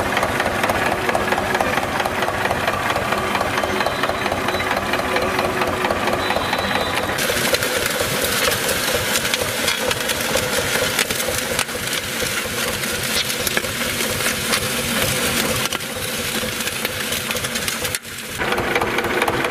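Small farm tractor's diesel engine running steadily under load with a clattering beat as it pulls a disc harrow through dry soil. About seven seconds in the sound turns brighter and hissier.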